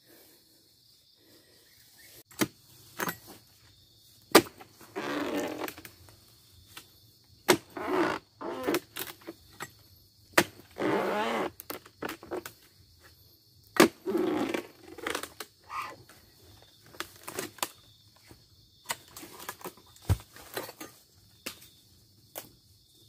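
Hand harvesting at a low oil palm: a string of sharp knocks and short rustling, scraping bursts from work in the palm's crown, over a steady high drone of insects.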